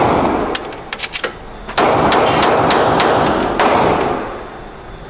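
Semi-automatic pistol fired in rapid succession, roughly three shots a second, each crack ringing in the enclosed range. The string stops about three and a half seconds in and the echo fades.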